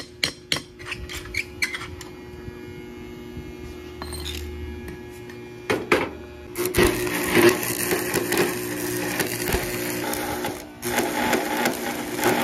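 A few sharp hammer taps on metal, then a steady hum. From about six and a half seconds an AC stick welder's arc crackles steadily; it cuts out briefly near eleven seconds and strikes up again.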